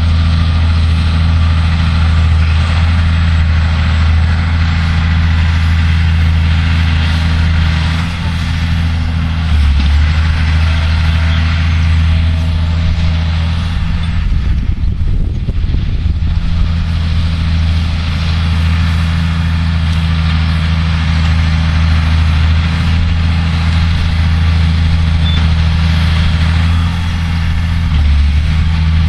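Massey Ferguson 6490 tractor's six-cylinder diesel engine running steadily under load while pulling a four-furrow plough through wet ground. About halfway the steady engine note is briefly covered by a rough low rumble.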